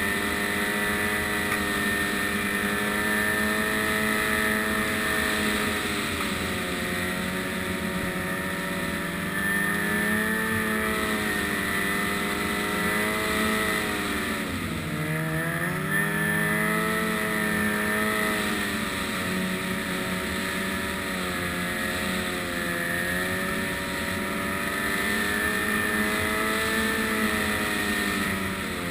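Snowmobile engine running steadily while riding, its pitch dipping and then rising again a few times as the throttle is eased and reopened.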